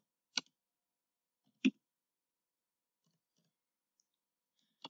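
A few sparse computer keyboard keystrokes: two distinct clicks in the first two seconds, the second the louder, then fainter taps later on.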